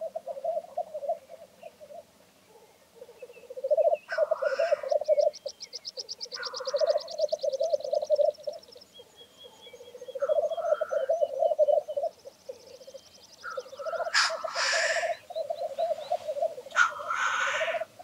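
Male black grouse lekking: the low bubbling rookoo song in repeated phrases, broken about five times by loud, short hissing sneeze calls.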